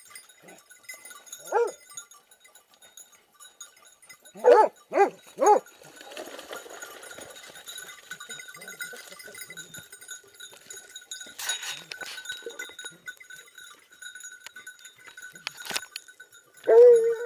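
Hunting hounds baying at a wild boar held at bay: one bay, then three quick bays about four and a half seconds in, and a longer bay near the end.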